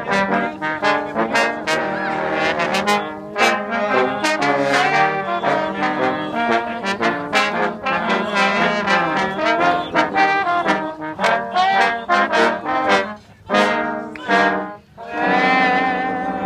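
Brass band music: trombones and trumpets playing a lively tune. It breaks off briefly twice near the end, then goes into a held chord.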